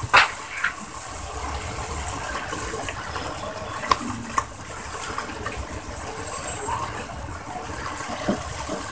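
Steady sizzling of food frying in a marble-coated non-stick pan, with a few short clicks of a spatula against the pan about four seconds in.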